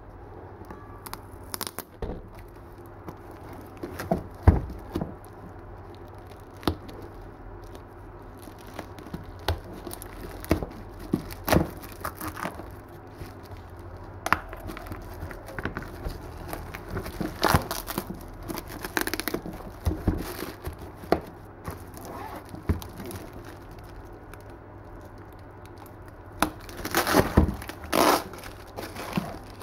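Small spring snips cutting, and hands tearing and crinkling the plastic wrapping and tape of a parcel: scattered snips, rips and rustles, busiest near the end.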